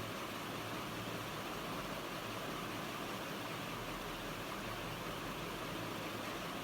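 Electric fan running steadily: an even whooshing air noise with a faint low hum, unchanging throughout.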